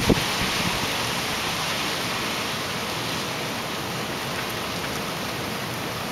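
Steady rush of hurricane wind and rain, with a brief low thump at the very start.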